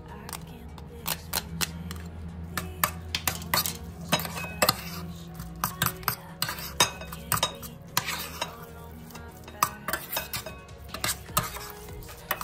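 Metal spoon stirring quinoa in a stainless steel pot, scraping through the grains and clinking against the pot's sides and bottom in quick, irregular strikes.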